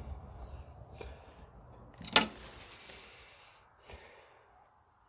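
One sharp clack about two seconds in, trailing into a second of scraping, then a softer knock near four seconds: hand work on the front of a small snowmobile, parts being handled and set against it.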